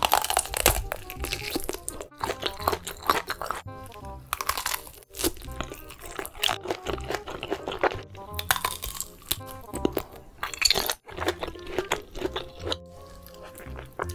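Bites into a large grilled kielbasa sausage, its skin snapping in a series of crisp crunches spaced a second or two apart, over background music.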